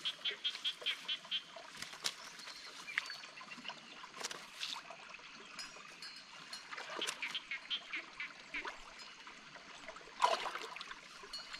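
Shallow stream water trickling, with small splashes and sloshes as a person wades in it and works with her hands in the water, and a louder splash about ten seconds in.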